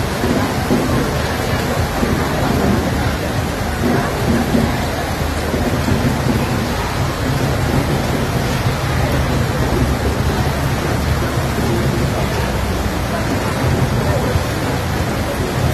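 Heavy rain pouring steadily, a loud continuous hiss with a steady low rumble underneath.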